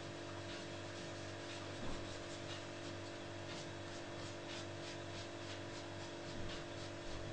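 Damp wet wipe rubbed back and forth over a sheet of cardstock, a run of faint quick scuffing strokes at about three a second through the middle, over a steady low electrical hum. The rubbing lifts the ink tone off the resist image so the inscription shows more clearly.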